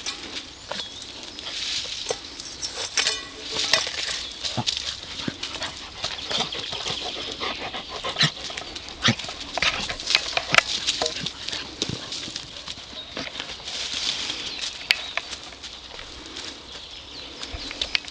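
Gordon Setter dogs and puppies scuffling and moving over dry leaves and sandy ground, giving a run of rustles and small clicks, with a brief puppy whine about three seconds in.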